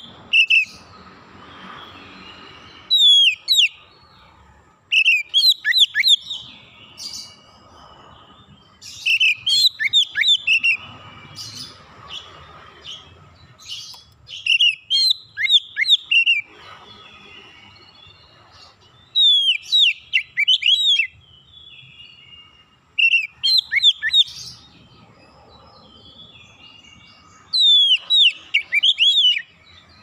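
Oriental magpie-robin (kacer) singing: short phrases of rapid, clear whistled notes, many sweeping downward, repeated about every three to five seconds with short pauses between.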